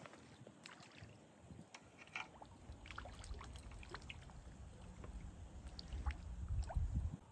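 Light water splashing and trickling at the water's edge, a scatter of small drips and splashes. From about two and a half seconds in, a low rumble joins it and cuts off suddenly near the end.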